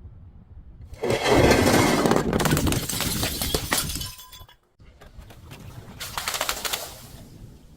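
Glass bottles shattering and crunching: a long, loud run of breaking glass starting about a second in, then a second, weaker burst of crackling glass a couple of seconds later.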